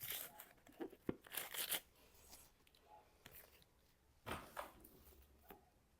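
Paper pages of a book being handled and turned: a series of short papery rustles and swishes, with a sharp click about a second in.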